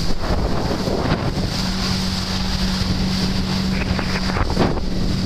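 Jet ski underway, its engine giving a steady drone, with wind buffeting the microphone and spray hissing off the hull.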